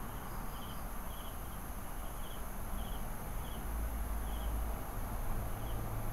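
Night insects in grass: a cricket giving short chirps about every half second over a steady high insect drone, with a low steady hum underneath.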